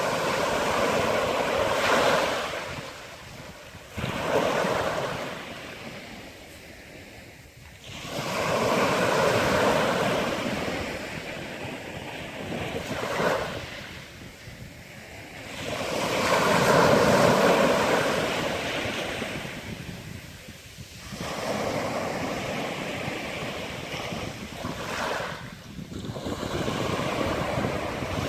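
Sea waves breaking and washing onto the shore, the surf swelling and falling back every few seconds.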